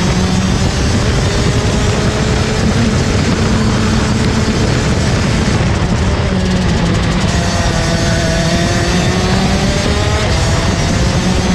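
Rotax 125 Max DD2 single-cylinder two-stroke kart engine running at racing speed, heard from on board the kart with wind noise. Its pitch climbs slowly, drops about five or six seconds in, then climbs again.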